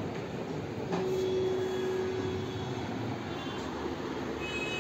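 Steady low background rumble with a faint hum in the middle and a single click about a second in.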